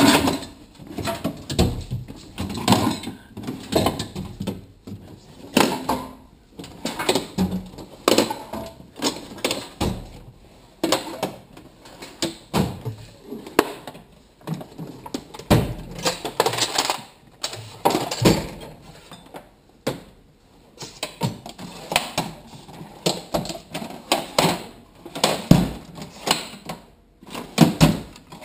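Irregular clatter of knocks, clicks and rattles from tools and drawers being handled, with short pauses between bursts.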